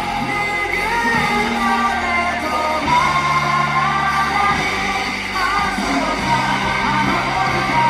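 Live pop-rock band performance with a male lead vocal over bass, guitars and drums, heard in a large hall with the crowd shouting along.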